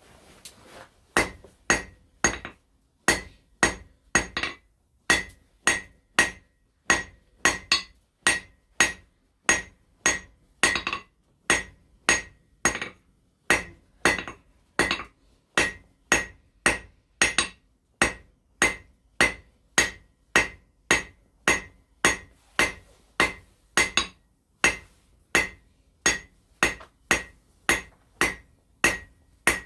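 Blacksmith's hammer striking hot steel on an anvil in a steady rhythm, about one and a half ringing blows a second, forging out a pin. The blows start about a second in.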